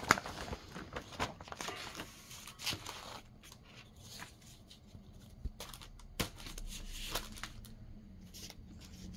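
Paper rustling and crinkling as cross-stitch kit sheets are handled and shuffled, with a sharp click right at the start and another about six seconds in.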